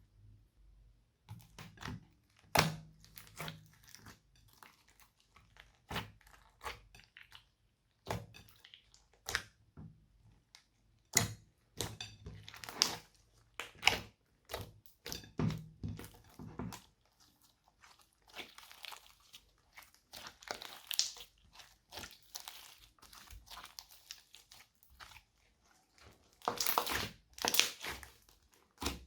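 Hands squeezing and kneading glossy slime mixed with clay and beads, the beads giving irregular crunching, crackling pops. It starts about a second in.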